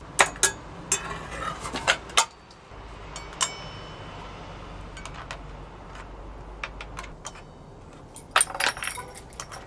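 Scattered metallic clicks and clinks as a blade is fitted to a Craftsman circular saw: the steel blade, blade wrench and saw's guard and base knocking together, with a quick flurry of clinks near the end.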